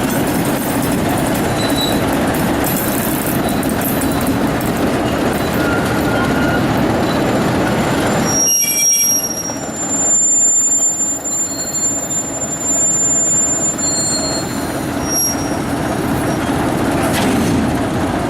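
Train rolling slowly on the rails as it pulls into a station, with thin high-pitched wheel squeals setting in about halfway through and dying away a few seconds later.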